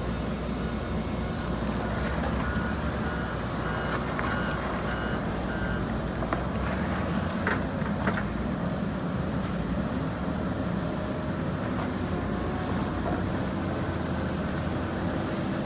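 JCB backhoe loader's diesel engine running steadily under work, with its reversing alarm giving a run of short beeps, about three a second, a couple of seconds in. Two sharp knocks sound about halfway through.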